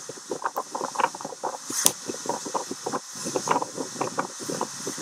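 Strong gusty wind buffeting the camera's microphone in irregular swells and rumbles, over the wash of waves breaking on a sandy shore.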